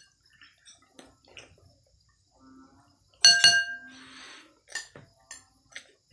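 A single sharp clink of tableware about three seconds in, ringing briefly, among quiet small clicks and mouth sounds of someone eating by hand.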